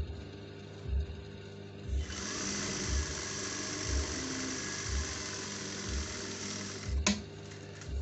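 Juki industrial sewing machine running, stitching steadily for about five seconds from about two seconds in, then stopping with a sharp click. Background music with a slow, steady beat plays throughout.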